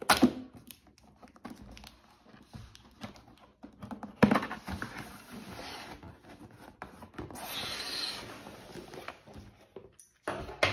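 Cardboard retail box being opened by hand: sharp knocks of the box being handled, one right at the start and the loudest about four seconds in, each followed by the scraping and rustling of cardboard flaps and the lid sliding open, with a longer stretch of rustling a little past halfway.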